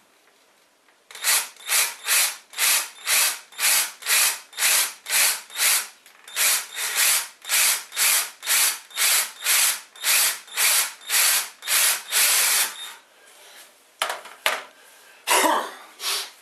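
Cordless drill boring a pilot hole through a printed-circuit-board packing piece into a wooden baseboard, its motor run in pulses about twice a second for roughly eleven seconds. A few knocks and a clatter follow near the end.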